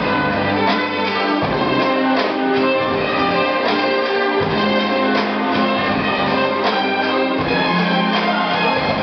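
Orchestral instrumental music playing at a steady level: sustained chords over a bass line that moves to a new note every second or two.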